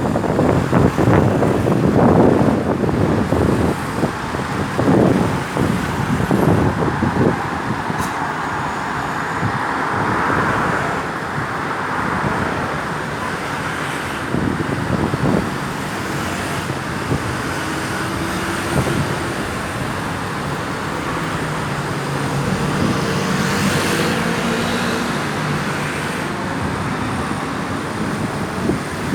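Road traffic: vehicles passing by, loudest in the first few seconds, then a steady rush of traffic.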